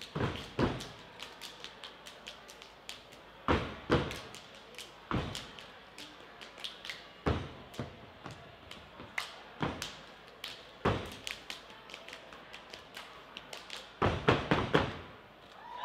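Stepping: three performers stomping, clapping and slapping their bodies, sharp hits at uneven spacing with a quick run of loud hits near the end.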